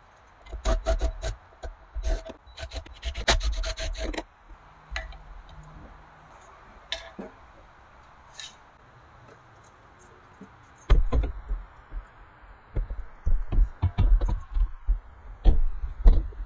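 Handling noise of taking roof-rack crossbars off a Nissan Xterra and setting a metal roof basket onto the rack: rubbing and scraping with sharp knocks. There is a dense patch of clicks and clatter in the first few seconds, a few single knocks in the middle, and a run of heavier thumps and clunks in the last five seconds.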